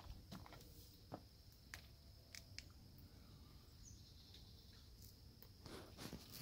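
Near silence: faint background hiss with scattered small clicks, and a brief rustle with a few louder clicks near the end.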